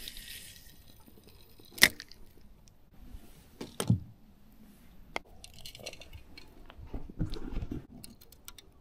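Close handling noises of fishing tackle being rigged: a sharp click a little under two seconds in, the loudest, then scattered clicks, brief rustles and a few dull knocks, with a quick run of small ticks near the end.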